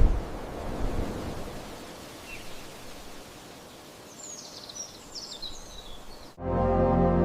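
Steady outdoor nature ambience, a soft even hiss, with a few faint bird chirps about four to five seconds in. Ambient music comes back in near the end.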